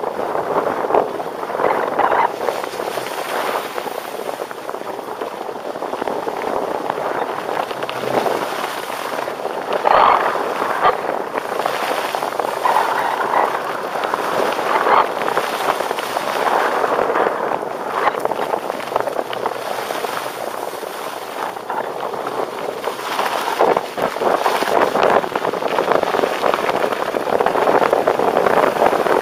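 Skis hissing and scraping over packed, groomed snow during a fast run, with wind rushing over the microphone; the noise swells and eases repeatedly.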